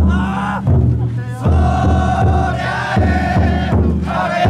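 Large taiko drum inside a taikodai festival float, beaten in a steady rhythm of about two to three strokes a second. A crowd of bearers chants and shouts together over it.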